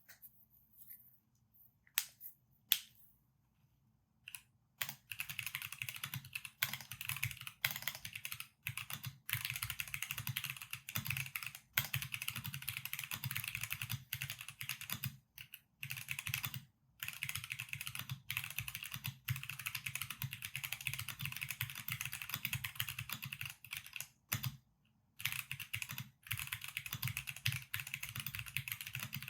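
Typing on a CMM.Studio Returned Wing custom mechanical keyboard with factory-lubed Gateron Limbo switches, PBT keycaps and a 5 mm polycarbonate plate. A few separate keystrokes come first, then fast steady typing starts about five seconds in and runs on with a few brief pauses.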